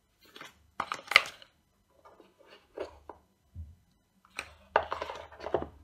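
Cardboard AirPods packaging and plastic charging cases being handled: a run of sharp taps, clicks and short scrapes as a box is slid and opened and a case is set down. The loudest clicks come about a second in, and another cluster comes near the end.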